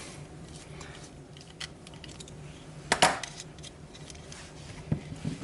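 Small metal tools and parts being handled on a workbench: a few light clicks, with one sharper metallic clink about three seconds in and small ticks near the end.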